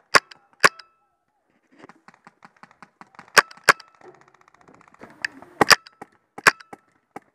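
Paintball markers firing: about nine sharp, loud pops, several in quick pairs. Between them runs a fainter, rapid popping of more distant markers, about ten shots a second, from roughly two to six seconds in.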